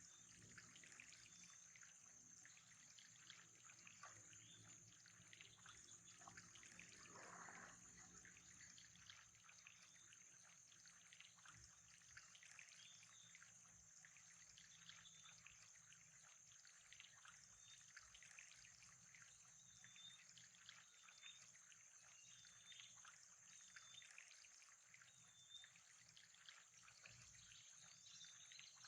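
Faint trickling water, made up of many small ticks, over a steady high-pitched whine, with scattered short chirps in the second half.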